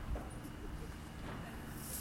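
A distant firework burst: one low thump just after the start, over a steady low outdoor rumble.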